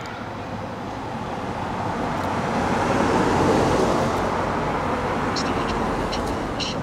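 A road vehicle passing by: its tyre and engine noise swells to a peak about three and a half seconds in, then fades away.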